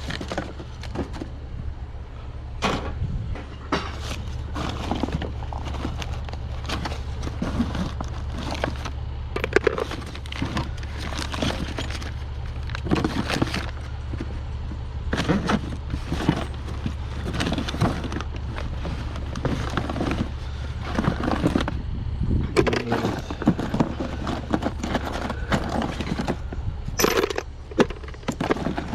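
Rummaging through curbside junk: a long run of irregular clatter, clinks and knocks as items are shifted and handled, over a steady low hum.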